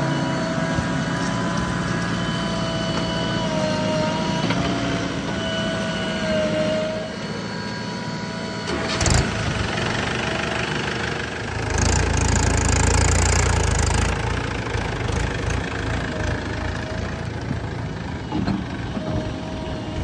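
Diesel engines of a JCB 3DX backhoe loader and a Swaraj tractor running steadily, with a whine that dips now and then. A sharp knock comes about nine seconds in, and a louder, deeper rumble follows from about twelve to fourteen seconds.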